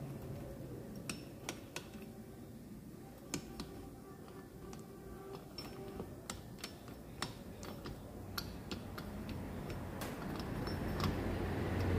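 Light metallic clicks and taps at irregular intervals as motorcycle gearbox parts are fitted into an engine casing by hand. A low rumble swells over the last couple of seconds.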